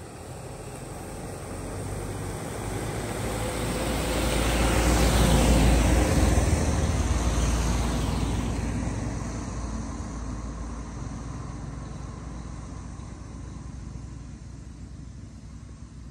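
A motor vehicle passing by: a rumbling noise swells, is loudest about six seconds in, then fades away, its pitch dropping as it goes past.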